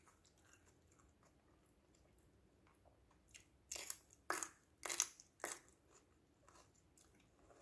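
Mouth-close chewing of raw yellow bell pepper strips, crisp and crunchy: faint at first, then about five sharp crunches in quick succession from about three seconds in.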